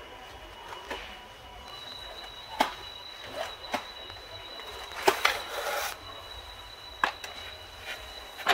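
Bagged canister vacuum cleaner under test: a steady high whine comes in about two seconds in and holds, with several sharp knocks and clatters as its floor head and hose are pushed and lifted.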